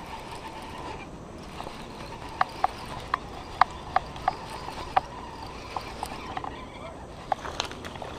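Baitcasting reel clicking in short, irregular bursts, about a dozen sharp ticks, while a hooked bass is fought on the line.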